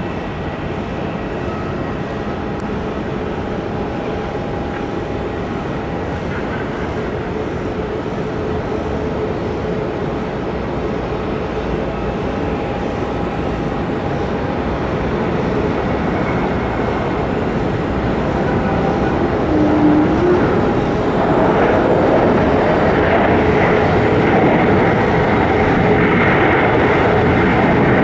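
Airbus A220-300's Pratt & Whitney geared turbofan engines on landing approach: a steady jet rumble that grows louder, with a whine swelling in over the last several seconds as it comes close.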